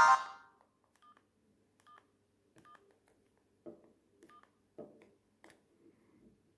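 Sony Ericsson J220i mobile phone: a ringtone cuts off and dies away in the first half second, then the keypad is pressed about ten times, giving faint short key beeps and soft button clicks at an uneven pace.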